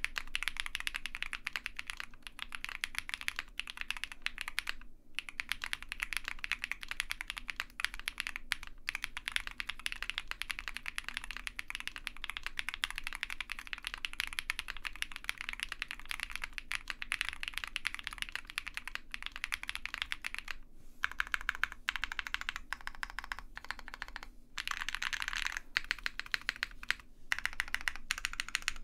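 Custom OwLab Mr Suit TKL mechanical keyboard with Krytox-lubed Zaku switches, a POM plate, PE foam and plate foam, and GMK keycaps, being typed on at a fast steady pace: a dense run of keystrokes with a few brief pauses. The PE foam gives the board its marble-like thock.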